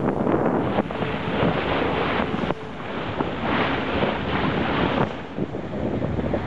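Strong wind buffeting the microphone, in gusts, over the wash of waves at sea.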